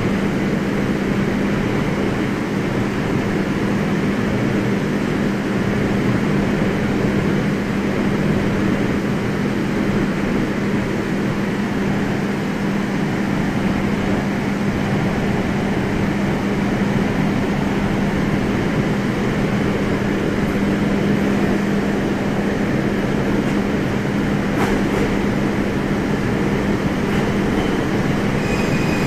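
JR 701-series electric train running at a steady speed, heard from inside the car: an even rumble of wheels on rail with a constant low hum.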